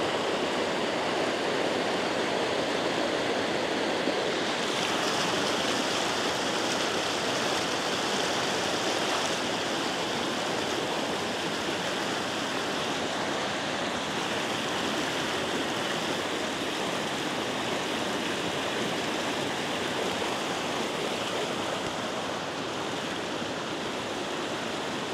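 Flowing water rushing steadily with a continuous, even hiss.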